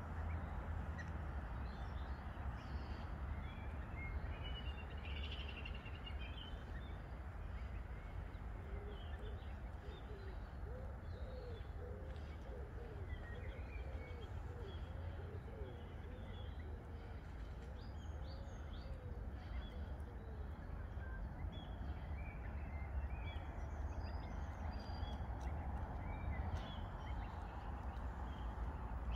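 Small birds chirping here and there over a steady low rumble of outdoor background noise. A run of lower, wavering calls comes in about a third of the way through and lasts roughly ten seconds.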